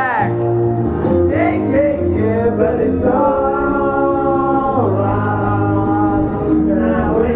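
Men singing karaoke into microphones over a backing track, with a long held note in the middle.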